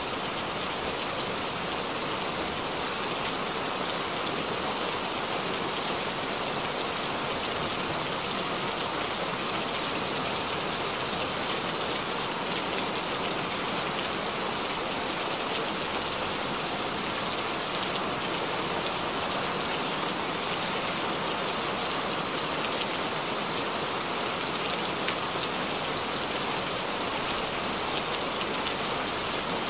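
Heavy rain falling steadily, a dense even patter of drops.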